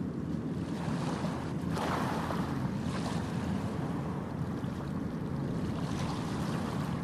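Passenger ship KM Labobar's engines running at the quay before departure: a steady low rumble, with wind on the microphone and a brief louder rush about two seconds in.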